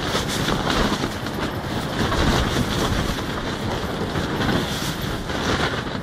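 High wind buffeting a Coleman Instant tent, its fabric walls flapping and rattling without pause and surging louder with the gusts.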